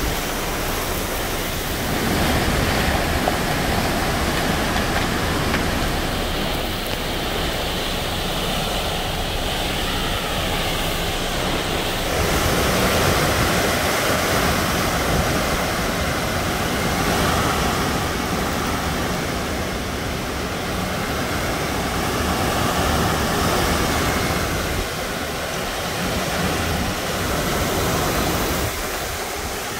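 Hurricane wind and driving rain making a steady roar that swells and eases every few seconds.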